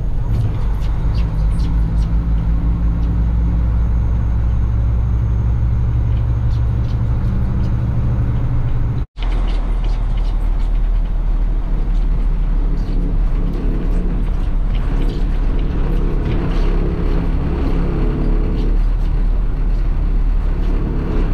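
Heavy farm machinery engine running steadily. About nine seconds in, the sound cuts out for an instant and switches to a different engine, running with a more mid-pitched drone.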